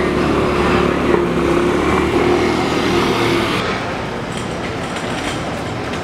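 Street traffic: a vehicle engine running steadily with a low hum. About three and a half seconds in it gives way to lighter street background noise.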